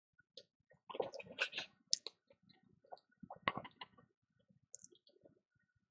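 Faint, irregular clicks and small scratches of a fine scraping tool working on an iPhone 6 logic board, with a cluster about a second in and another near the middle.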